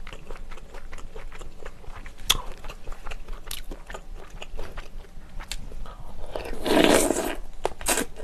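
Close-miked eating sounds: scattered small clicks and wet chewing, then a loud slurp of thick Chinese glass noodles from spicy soup about seven seconds in.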